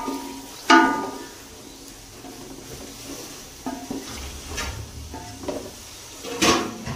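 A spoon stirring chicken and potatoes in a metal pot, knocking and scraping against the pot's side so that it rings briefly with each knock. The loudest knocks come about a second in and near the end, with lighter ones in between over a faint sizzle of the frying masala.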